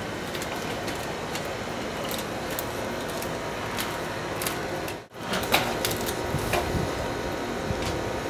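Scattered light knocks and clicks from workers handling a solar panel and stepping on a metal roof, over a steady background hiss. The sound cuts out for an instant about five seconds in.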